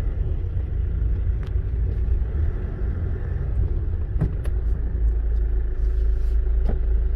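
Steady low rumble of a car heard from inside the cabin as it creeps along in slow traffic on a wet street, with a few faint ticks.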